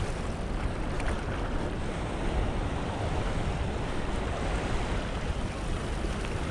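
Steady rush of surf and flood-swollen river water along a stone jetty, with a low rumble of wind on the microphone.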